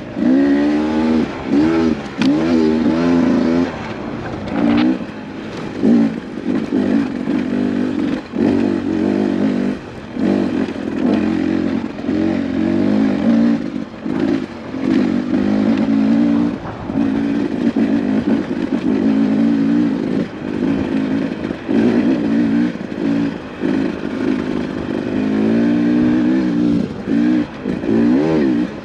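Beta 250RR dirt bike engine revving up and down, its pitch rising and falling constantly as the throttle is worked over the trail, with scattered knocks and clatter from the bike over rough ground.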